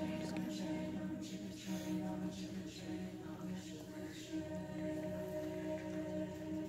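Mixed-voice high school choir singing, holding one sustained chord.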